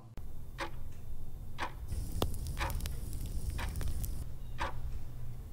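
Ticking-clock sound effect, one tick about every second over a steady low rumble, with a hissing shimmer for about two seconds in the middle.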